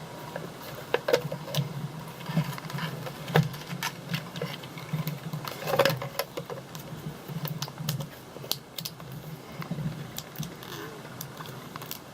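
Hard plastic toy fridge clicking and knocking irregularly as its detached door is worked to snap back onto its hinges.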